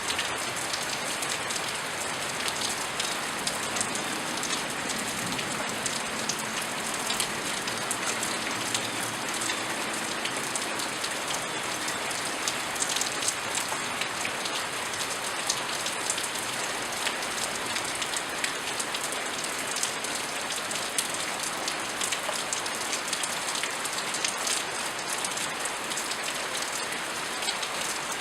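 Steady rain falling, with many close raindrops pattering and ticking on hard surfaces.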